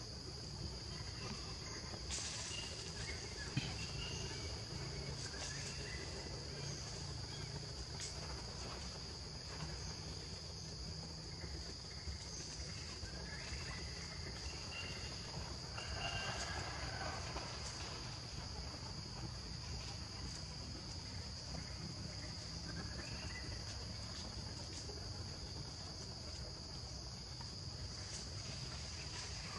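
Steady, high-pitched drone of insects, with faint short chirps or squeaks now and then and a louder rustling patch a little past the middle.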